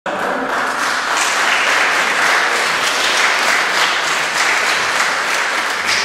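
Audience applauding steadily.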